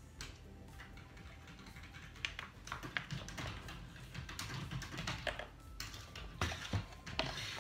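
Scattered light clicks and taps of kitchen utensils and containers handled on a bench while soap mixture is prepared, coming more often and a little louder in the second half.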